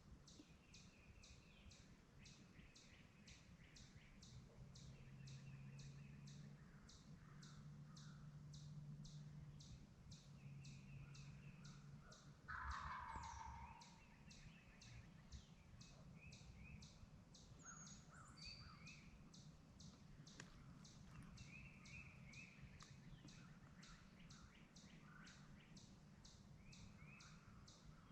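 Wild turkey gobbling once about halfway through, a short rolling call, over faint woodland birdsong and a steady high chirp repeating about twice a second.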